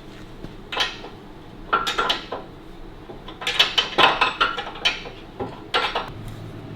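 Steel spanner clinking and tapping against the rear axle back-plate nut and wheel parts of a motorcycle, an irregular run of metallic clinks in small clusters.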